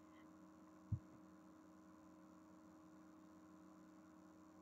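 Near silence: a faint, steady electrical mains hum in the recording, broken once about a second in by a single short, low thump.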